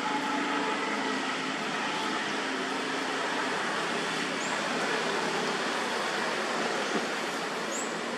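Steady outdoor background noise, an even rushing hiss, with two short high chirps about four and a half and nearly eight seconds in.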